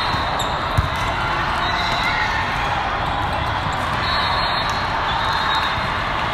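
A volleyball struck hard once, a sharp smack about a second in, over the steady din of a large sports hall full of games and voices.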